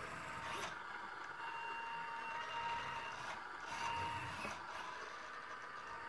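Faint steady high electronic whine from a switched-on RC model car's electronics, with a few light clicks.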